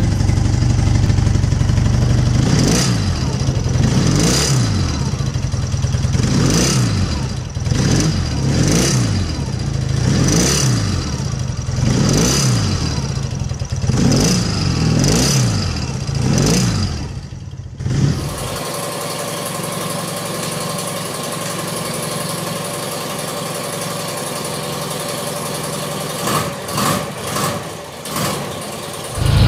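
BMW R 80 air-cooled flat-twin motorcycle engine being revved: the throttle is blipped over and over, the revs rising and falling about every second and a half. About 18 seconds in the sound cuts to a steadier, thinner running engine, with a few short rises in revs near the end.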